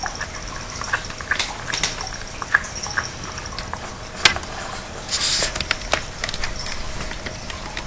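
Cats eating from their food bowls, making irregular small clicks and taps, with one sharp click about four seconds in and a brief hissy rustle around five seconds.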